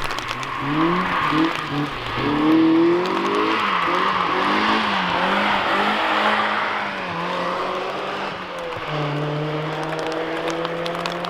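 Car engines driving on a racetrack, their revs rising and falling repeatedly with gear changes over a steady hiss, then holding a steadier note near the end.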